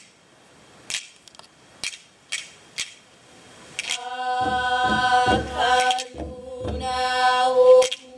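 Hawaiian chant for a hula performance. It opens with a few sharp percussive strikes in near quiet; about four seconds in, chanted vocals begin, holding long steady notes over low percussion beats.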